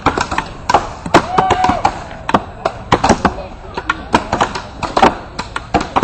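Axes chopping into wood: many sharp strikes, several a second at an uneven pace.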